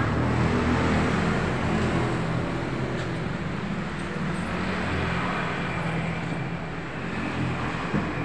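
Steady road-traffic rumble with no single event standing out.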